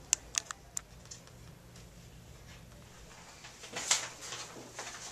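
Small sharp metal clicks of suture scissors and forceps snipping and pulling out stitches from a foot: four quick clicks in the first second, then a cluster of softer snips and scrapes near the end.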